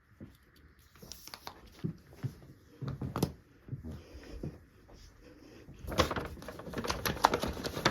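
Small items being handled and rummaged through in a bag: scattered clicks and knocks, turning into dense rustling and crackling from about six seconds in.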